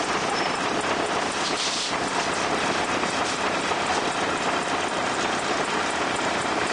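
Heller CNC crankshaft pin-milling machine at work on a crankpin: a steady, even hiss of cutting that does not let up.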